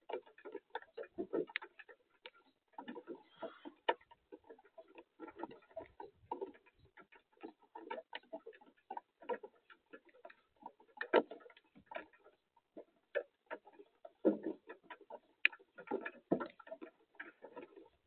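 Raindrops dripping and pattering irregularly onto the wet wooden feeder and the camera housing, a dense run of short ticks and taps.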